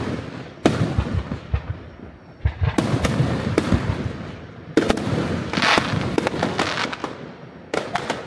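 Fireworks going off: a string of sharp bangs, several in quick clusters, each trailing off in an echo.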